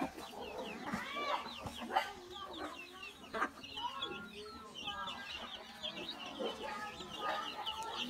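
A brood of chicks peeping nonstop in a stream of short, high chirps as they feed, with hens clucking lower among them.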